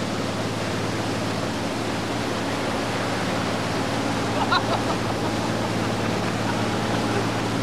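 Rushing, churning water of a powerboat's wake and propeller wash spraying over the stern platform, steady and loud, over the constant low hum of the boat's engine.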